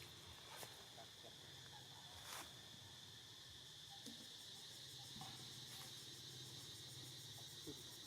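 Faint, steady high-pitched trilling of insects, with a couple of faint clicks.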